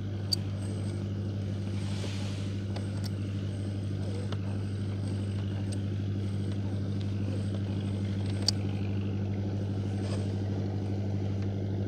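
A small boat's engine running steadily at a constant pitch. There are two brief sharp clicks, one just after the start and one about two-thirds of the way through.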